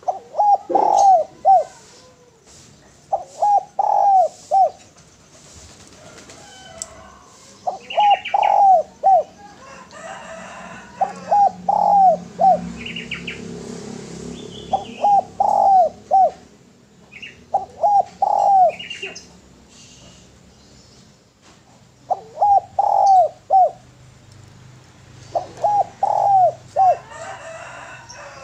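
Spotted dove (derkuku) cooing: about eight phrases of four or five quick, rolling coos, each phrase about a second long and repeated every few seconds. Short high chirps of other small birds sound between the phrases.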